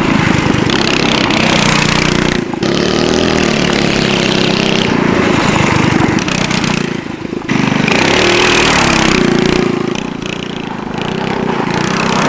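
Predator 212cc Ghost single-cylinder OHV kart racing engine driving a go-kart hard. It runs at high revs with its pitch rising and falling, and its level dips briefly twice.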